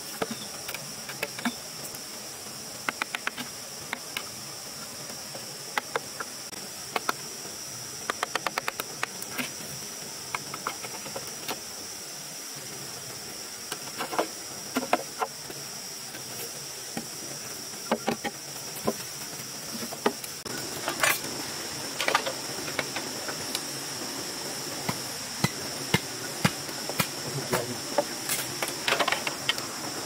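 Sharp, irregular knocks of a wooden mallet driving a chisel into a green bamboo pole to cut a mortise, some in quick runs of light taps, louder strikes in the second half. A steady high-pitched insect drone runs underneath.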